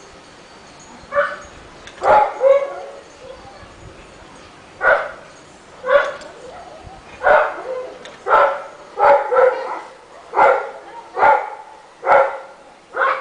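A Rottweiler barking repeatedly: about a dozen barks, some in quick pairs, coming roughly once a second after a gap of a couple of seconds near the start.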